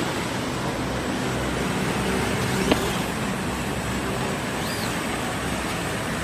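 Profile sanding machine running in a workshop: a steady, even noise with a low hum underneath, and one sharp click a little under three seconds in.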